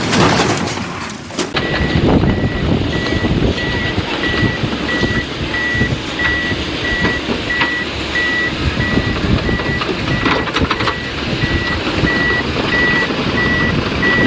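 A heavy machine's reversing alarm beeping steadily at one pitch, about one and a half beeps a second, over the rumble of its engine. The beeping begins a second and a half in, after a brief loud noisy stretch.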